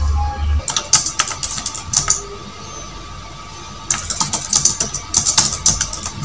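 Irregular runs of rapid clicks, like typing on a computer keyboard, in two busy bursts with a sparser stretch between, over a faint steady tone.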